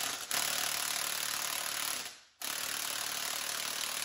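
Impact wrench hammering in two runs with a short stop about two seconds in, turning the jacking screw of an internal coil spring compressor to slowly let the tension off a front coil spring.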